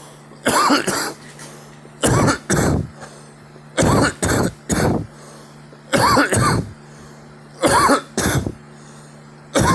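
A person coughing over and over in short fits of two or three coughs, a fit about every two seconds.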